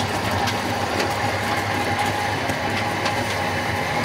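Steady mechanical hum and rumble of the motor-driven rotating drum of a roller ice cream machine, with scattered light clicks.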